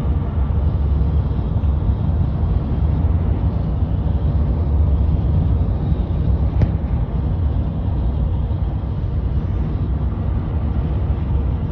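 Steady rumble of a car's road and engine noise at highway speed, heard from inside the cabin, with one brief click about halfway through.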